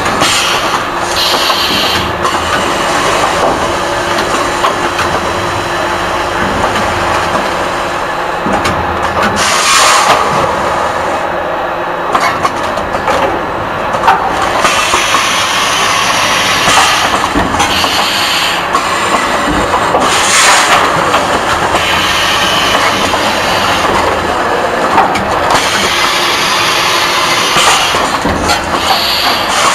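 Woven-bag packaging machine running: a steady mechanical clatter, with a short hiss every few seconds.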